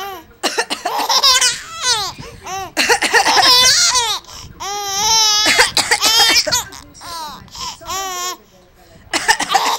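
A baby laughing hard in repeated high-pitched bouts with short pauses between them.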